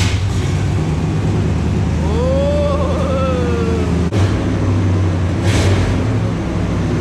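A 1990 Chevy Silverado K2500's 350 (5.7 L) small-block V8 fires up and runs with a loud, steady low rumble through a new exhaust with a Flowmaster Super 44 muffler. A long rising-and-falling call sounds over it about two seconds in.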